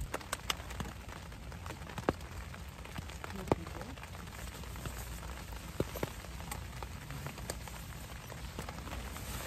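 Raindrops tapping irregularly on a Naturehike VIK1 tent's fabric, heard from inside the tent over a steady low rumble.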